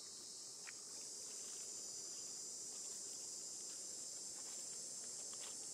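Steady high-pitched insect chorus, with a few faint splashes of water in a shallow concrete tank.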